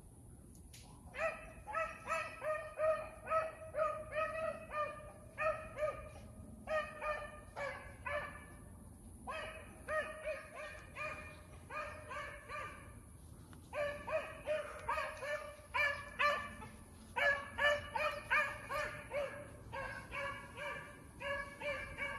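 Beagles baying in quick, repeated chop barks, about three a second, in runs of several with short breaks, as the hounds run a rabbit's track.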